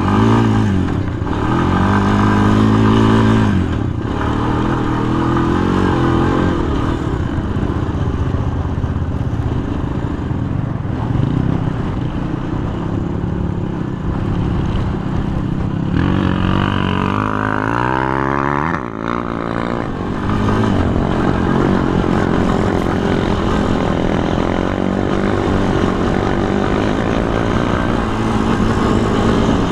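Sport quad (ATV) engine running hard on sand, its pitch rising and falling as the throttle opens and closes, with a strong rev-up and drop near the middle. Wind rushes over the microphone.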